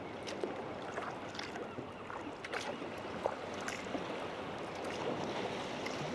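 Water washing and lapping around a sea kayak being paddled in swell, with scattered small splashes and drips from the paddle.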